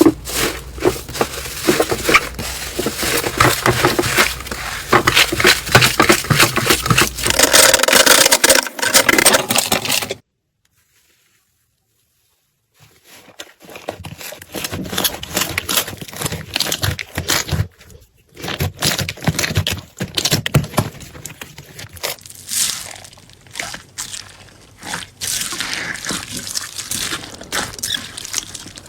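Hands squeezing, stretching and poking slime, with dense crackling and popping clicks as air pockets burst. The sound drops out for about three seconds a third of the way in, then the crackly squishing resumes.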